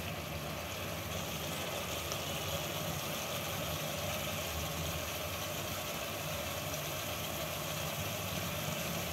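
Steady low hum with a faint hiss of tomato and mutton gravy cooking on a gas stove, the sauce simmering in an aluminium pot without being stirred.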